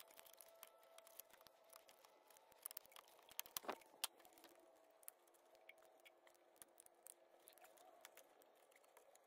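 Near silence, broken by scattered faint clicks and taps of hands working on plastic fan wiring connectors and handling the camera, with a short cluster of louder ticks about three and a half seconds in.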